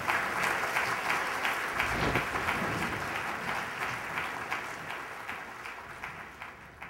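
Audience applauding, a dense patter of many hands clapping that slowly fades away over the last few seconds.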